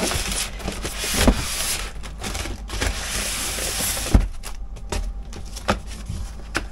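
Cardboard box being slid and pushed into a storage compartment, scraping and rustling against plastic-wrapped packing, with a thump about a second in and another about four seconds in. Lighter clicks and taps follow as the packing is settled.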